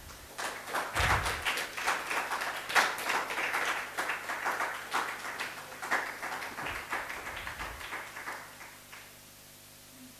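Audience applauding, starting about half a second in and dying away near the end, with a few low thumps underneath.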